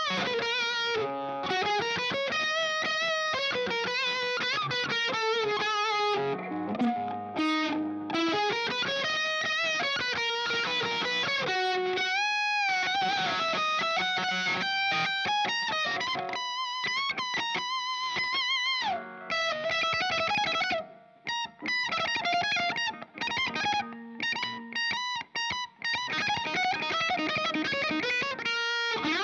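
Overdriven electric guitar, a Fender Stratocaster, playing a fast single-note lead line with bends and vibrato, including a long held vibrato note about twelve seconds in. Short breaks between phrases come in the second half.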